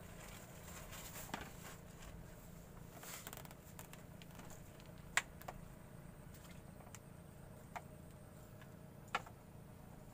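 Faint steady background with a handful of short, sharp clicks, the loudest about five seconds in and another about nine seconds in.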